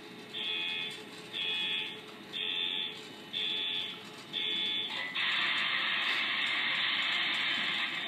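Sound-decoder horn of an HO scale SD70ACE diesel model locomotive, played through its small onboard speaker: five short blasts about a second apart, then one long held blast, over the steady sound of the diesel engine.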